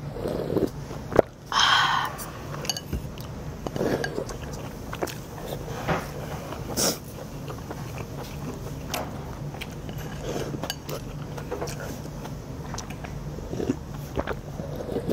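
Eating and drinking at the table: broth drunk from a bowl held to the mouth, with chopsticks and a spoon clicking against ceramic bowls, and one brief louder sound about a second and a half in. A steady low hum runs underneath.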